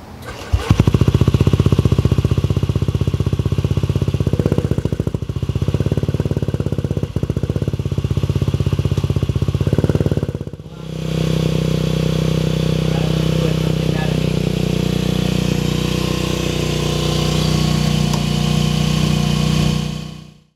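Honda Ruckus scooter's 49cc four-stroke single-cylinder engine running at idle, a fast, even exhaust beat that starts abruptly just under a second in. It fades briefly about halfway through, then idles on steadily.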